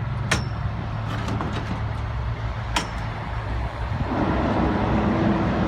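Old furnace running with a steady low hum, with two sharp clicks, and about four seconds in a louder rushing sound with a steady tone comes in.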